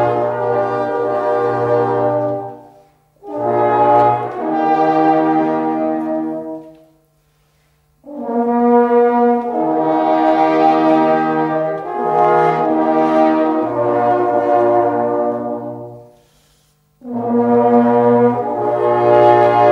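Music: brass horns playing slow, held chords in phrases of a few seconds, with short pauses between them, around three, seven and sixteen seconds in.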